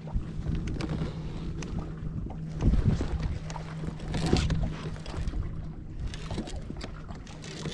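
Choppy lake water lapping and splashing against a kayak's hull, with wind buffeting the microphone; the splashing surges louder twice, about three and four and a half seconds in.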